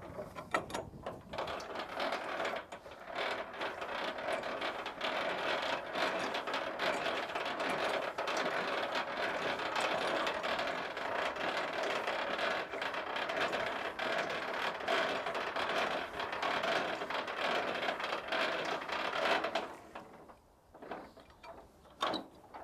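Semi-trailer landing gear being hand-cranked down in high gear: a continuous rapid clicking and grinding from the crank's gearbox, which stops about 20 seconds in as the legs' feet reach the ground.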